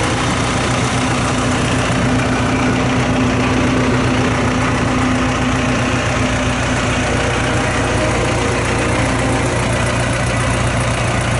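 Diesel engine of a 2006 Massey Ferguson 5475SA tractor idling steadily. A thin steady whine over the engine sound fades out about two-thirds of the way through.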